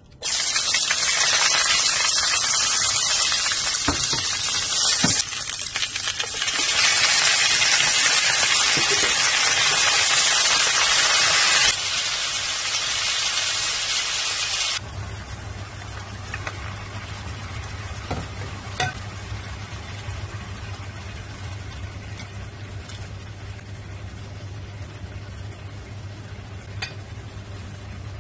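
Sliced onions and chicken wings sizzling loudly in hot oil in a nonstick frying pan. About halfway the sizzle stops and gives way to a much quieter low steady hum with a few light clicks.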